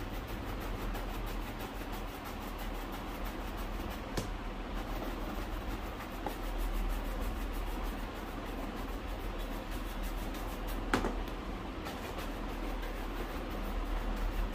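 Steady scrubbing of a brush on a shoe, with two sharp knocks, about four seconds and eleven seconds in, the second the louder.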